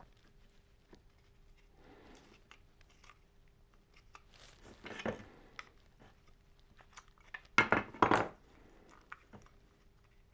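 Tool parts being handled and fitted together by hand: scattered small clicks and scrapes, with louder clacks about five seconds in and again around eight seconds.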